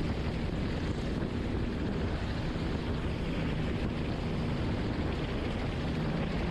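Helicopter engine and rotor noise heard from on board, a steady low hum under an even rushing noise.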